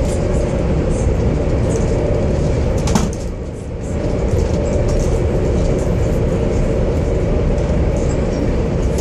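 Cabin noise of a high-speed train running at speed on the Beijing–Shanghai high-speed line: a steady low rumble heard from inside the carriage. About three seconds in there is a sharp click, and the noise drops briefly for about a second.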